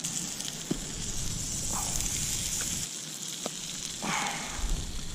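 Flat bread dough frying over a campfire with a steady sizzle, and a few sharp pops.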